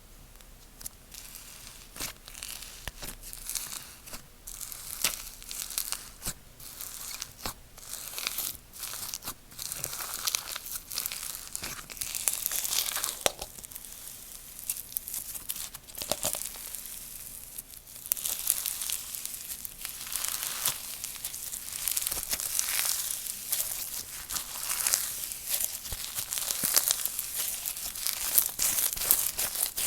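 Slime being squished, stretched and poked by hand, giving dense runs of crackling, crinkling clicks that build up and grow louder in the later part.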